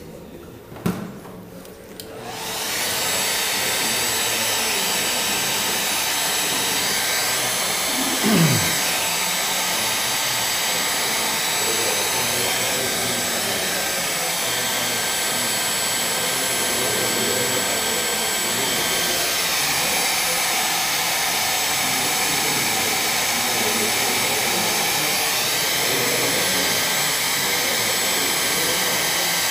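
Hair dryer switched on about two seconds in and running steadily with a constant whine, drying wet watercolour paint on paper. About eight seconds in there is a short falling tone.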